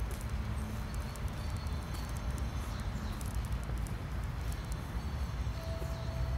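Footsteps of a person walking on a paved path, with a steady low rumble underneath. A brief steady tone sounds near the end.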